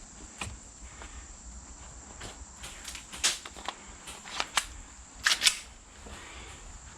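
Airsoft guns firing: sharp snapping shots, a few scattered at first, then quick clusters from about three seconds in, the loudest near three and five and a half seconds.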